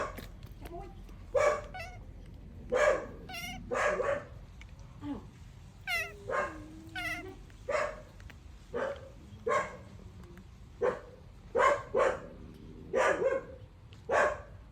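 Dog barking repeatedly, short barks roughly once a second, with a few high wavering squeaks in between.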